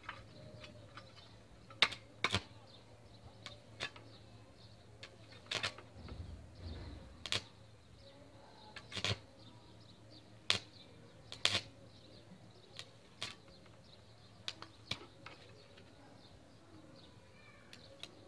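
A homemade salt-water arc welder: a thin iron electrode held in pliers snaps and crackles in short, irregular sparks against a steel plate, and the arc never holds. The salt in the water is not yet fully dissolved, which the maker says keeps it from welding well.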